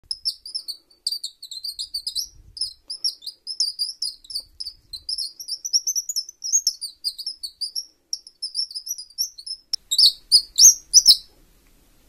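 Wooden bird call being played: a plated steel eye-bolt screw is twisted in a hole in a small wooden block, giving rapid, high, squeaky chirps, several a second, like a small bird twittering. The last few chirps, about ten seconds in, are louder and sharper.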